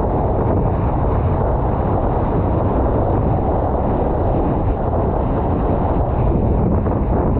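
Strong wind buffeting an action camera's microphone: a loud, steady, low rumble with no break.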